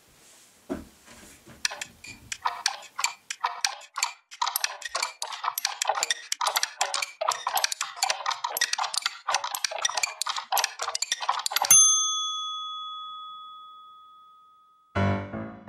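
Time-travel sound effect: a fast, uneven run of clicks and rattles for about ten seconds, cut off by a single bright bell ding that rings out and fades over about three seconds. Piano music comes in near the end.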